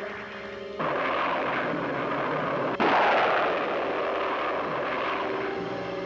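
Cartoon sci-fi sound effect of an alien craft flying in: a loud rushing noise that starts suddenly about a second in, jumps louder at about three seconds, then fades away as the music comes back.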